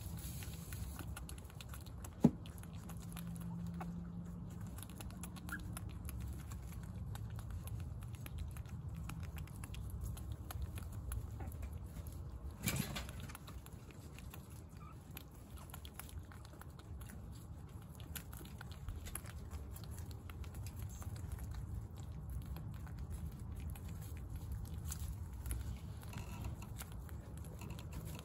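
A group of guinea pigs munching tomato: a steady patter of many small chewing clicks over a low rumble, with one sharp click about two seconds in.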